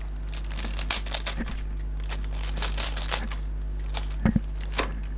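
Plastic packaging crinkling and tearing in short, irregular crackles as a parcel bag is handled and opened, over a steady low hum.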